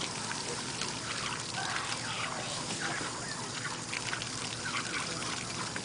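Water pouring and trickling steadily, with many small splashing blips.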